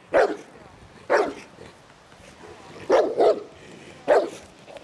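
A large dog barking at a threatening stranger in a temperament test: five loud barks about a second apart, two of them in quick succession about three seconds in.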